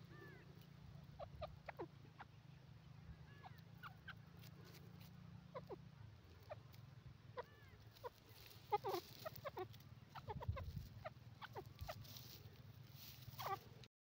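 Grey francolin giving soft, scattered clucking notes, a few at a time, with small clusters about nine and ten and a half seconds in. A steady low hum lies beneath.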